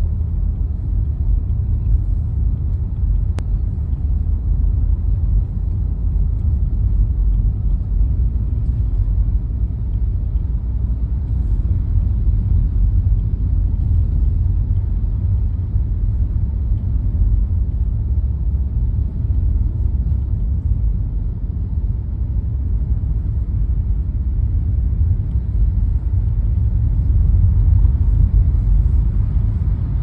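Steady low road rumble inside a moving car's cabin as it drives on a snow-covered highway, tyre and engine noise together, a little louder near the end.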